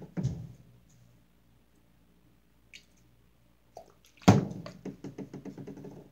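Handling noises at a tabletop: a light knock near the start, then a sharp knock about four seconds in as a plastic bottle is handled against the table, followed by a quick run of light clicks as a hand works slime inside a plastic cup.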